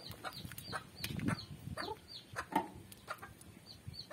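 Chickens in the background: a steady string of short, high peeps that fall in pitch, a few each second, with a few lower clucks among them.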